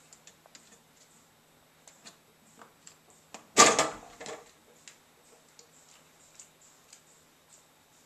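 A cat jumps out of an open dishwasher: a short, loud clatter and thump about three and a half seconds in, followed by a smaller knock. Faint scattered taps and clicks come before and after it.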